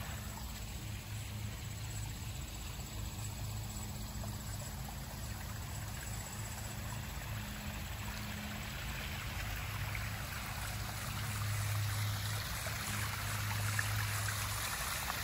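Small garden pond waterfall splashing and trickling steadily, getting louder near the end, with a low steady hum underneath.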